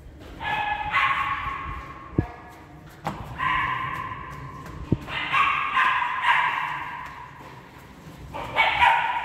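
A dog whining and yelping in four drawn-out, high-pitched whines of one to two seconds each. Two sharp knocks fall between them.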